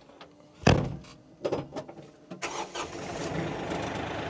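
A tractor cab door slams shut with a loud thud, then the compact tractor's diesel engine starts about two and a half seconds in and settles into a steady run.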